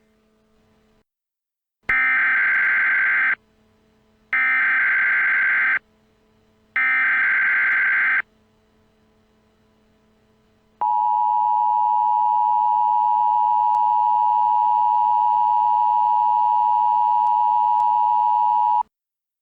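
Emergency Alert System SAME header: three loud bursts of data tones about a second apart, then a long, steady attention tone that cuts off abruptly, announcing a new alert. A faint low drone runs underneath.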